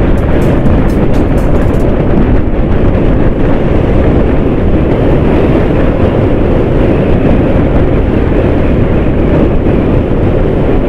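Hero Xtreme 160R motorcycle cruising steadily at speed: a constant rush of wind on the microphone over the hum of its single-cylinder engine.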